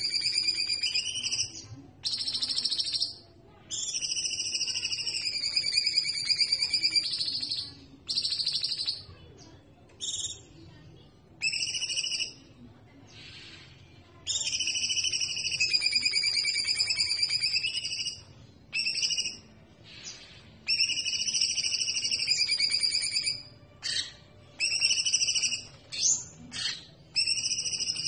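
Caged cucak birds (cucak jenggot, cucak cungkok, cucak keling) singing for song training: loud, high whistled phrases a second to several seconds long, broken by short gaps and brief calls, with a quieter stretch near the middle.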